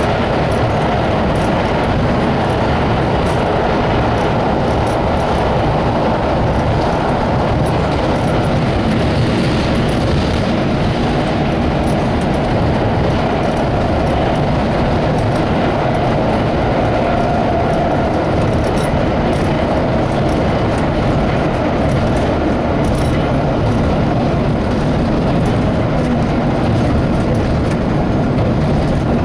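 Vintage IRT Lo-V (low-voltage) subway cars running at speed through the tunnel, heard from inside the lead car. The running noise of wheels on rail and the car body is steady and loud, with faint clicks scattered through it.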